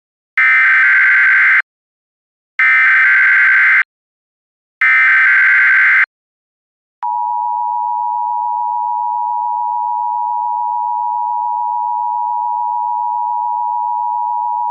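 Emergency Alert System test signal: three one-second bursts of warbling digital data tones (the SAME header), then, about seven seconds in, the steady two-tone attention signal.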